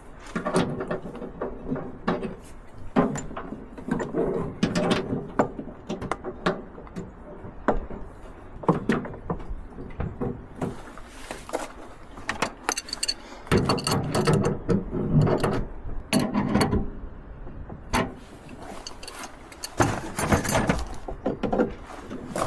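Irregular mechanical clicks, knocks and rattles of hand work, with busier spells of handling about two-thirds of the way through and near the end.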